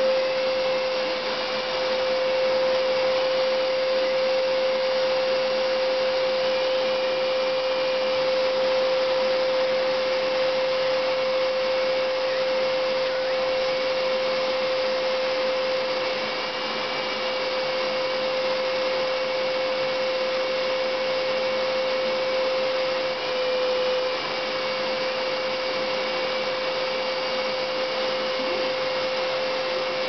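Vacuum cleaner running steadily: a constant motor tone over a rushing of air, dipping briefly in level about two-thirds of the way through.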